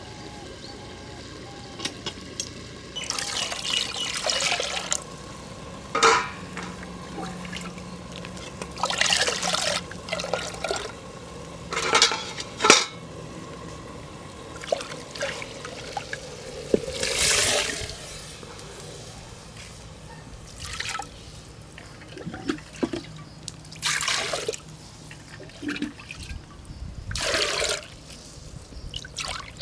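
Liquid sloshing and splashing in clay pots in repeated short bursts, a second or two each, as a hand works through a thin liquid.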